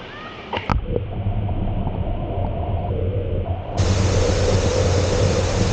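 Steady rushing noise of the waterfall with a low rumble. It gets louder and brighter about two thirds of the way in.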